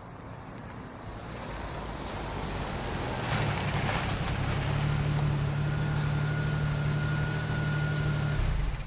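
Car engine growing louder as the car drives back in, then settling into a steady engine drone with a thin high whine over it. The engine cuts off near the end as the car powers down.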